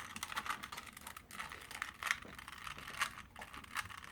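Rubik's cube being turned fast: a quick, irregular run of plastic clicks and clacks as the layers snap round.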